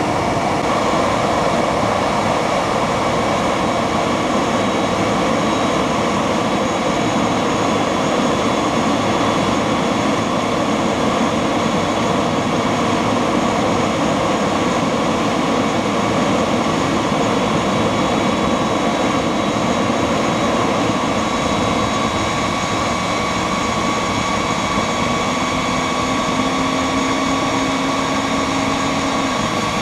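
Homemade electric jet engine running at high revs: a brushless electric motor spins a centrifugal compressor, giving a loud, steady rushing roar with a high whine over it. On this attempt the kerosene is not being fed, so the combustion chamber is not properly alight. A low steady hum joins near the end.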